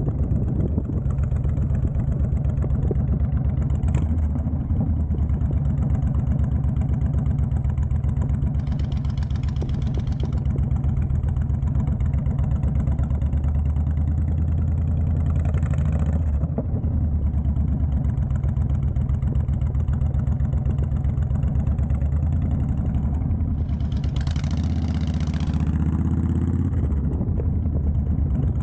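Honda Fury's 1312 cc V-twin running through a Cobra Speedster Swept exhaust at low speed, a steady deep exhaust note with a small rise in revs near the end. A few short bursts of hiss come over it.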